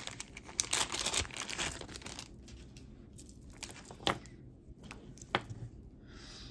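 Packaging crinkling and rustling as it is handled for about two seconds, then a few light clicks and taps.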